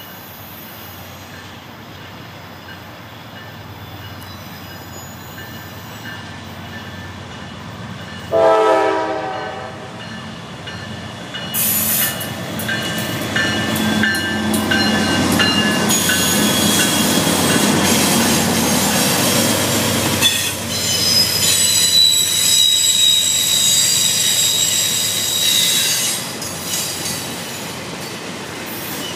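A diesel freight train approaches, and about eight seconds in the lead locomotive's K5LA horn gives a short blast. Then two Norfolk Southern GE C40-9W locomotives pass close by. Loaded flatcars follow, their wheels squealing steadily and rattling over the rails.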